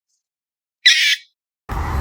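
A young big cat gives one short, high squeaky call just under a second in. Near the end an adult big cat's loud, deep roar starts.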